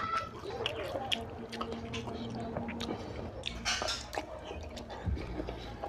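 Hand squishing rice into oily mutton curry on a plate, then close-up wet eating sounds as a handful is taken into the mouth: smacking and chewing, loudest a little before the four-second mark.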